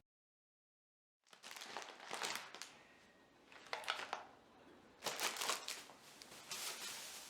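Rustling, crinkling handling noise in about four irregular bursts, starting a little over a second in.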